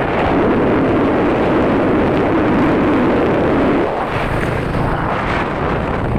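Wind buffeting the microphone of a moving vehicle, over steady road noise. It is loudest for the first four seconds, then eases slightly.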